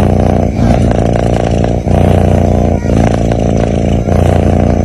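A sleeping cat snoring loudly: a low, rattling rumble that breaks roughly once a second as each breath turns between in and out.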